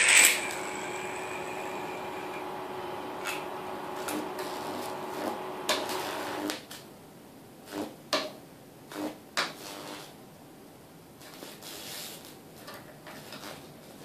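A high-voltage arc from a microwave oven transformer at about 2000 volts crackles onto a microwave's display board at the start, then the energised transformer hums steadily. The hum cuts off about six and a half seconds in, followed by scattered light clicks and knocks.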